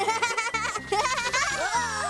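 Playful cartoon background music with sound effects over it: a quick warbling trill in the first second, then several falling glides near the end, over a long, slowly falling tone.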